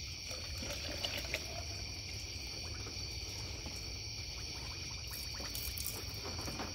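Antifreeze coolant pouring from a jug through a long funnel into a heater core hose, filling the heater core by hand to push air out of it. A steady high insect trill runs behind it.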